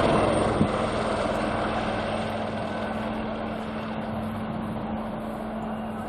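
Royal Navy Lynx-family helicopter in flight, its rotors and turbines making a steady drone with a steady hum, slowly fading as it flies away.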